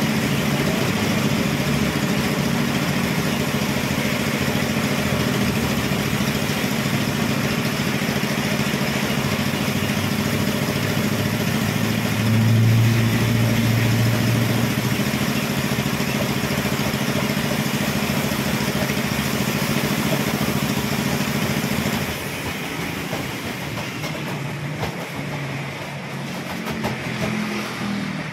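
Homemade carpet spin dryer built from a used plastic barrel, its motor running steadily with a low hum and a broad rushing noise as the drum spins a wet carpet. The noise drops noticeably with about six seconds to go, as the machine eases off.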